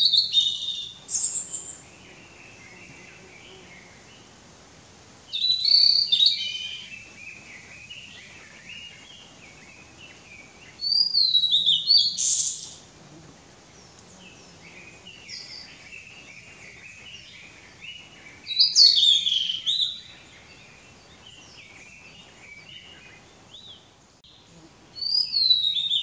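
Male blue-and-white flycatcher singing: five loud song phrases about six seconds apart. Each phrase is a few clear, falling whistles ending in a harsh, buzzy "jiji" note, with fainter chirping between the phrases.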